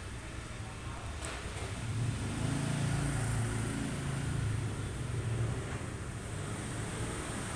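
A motor vehicle's engine passing on a street: a low hum swells about two seconds in and fades away after a few seconds. A single faint click comes early.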